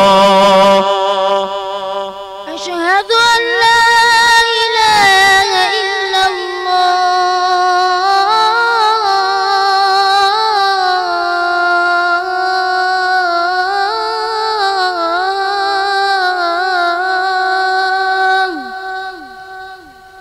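A muezzin's voice chanting the adhan. After a short break, he takes up a new phrase about three seconds in with a rising slide. He holds it as one long, ornamented, wavering note, which fades near the end.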